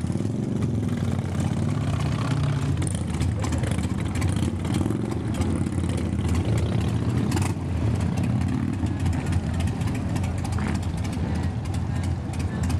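A motorcycle engine running steadily, with a low continuous rumble.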